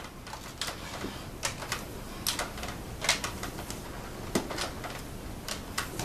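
Power cable being wound by hand onto the cable hooks of a Dyson DC07 upright vacuum: a string of irregular light clicks and taps as the flex knocks against the machine's plastic body and hooks.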